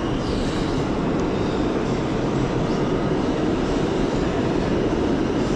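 New York City subway train in the station, a steady rumble that grows slightly louder.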